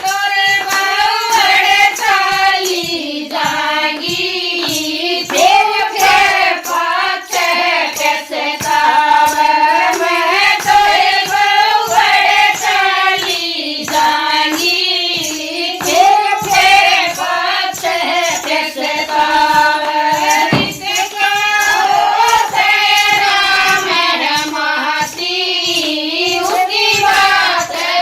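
A Haryanvi bhajan sung in a single high voice, with a steady beat of hand-clapping keeping time, about two claps a second.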